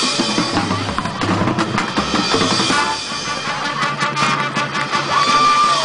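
High school marching band playing its halftime field show: winds over marching drums and a front percussion section. A single high note is held briefly near the end.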